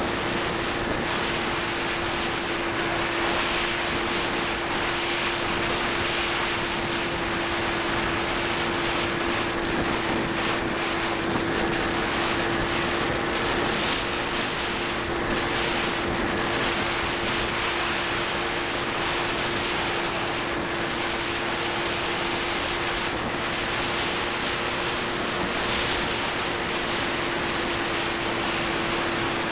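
Onboard sound of an Ares Gamma Pro RC floatplane in flight: its electric motor and propeller hum at a steady pitch under a constant rush of wind over the on-board camera's microphone.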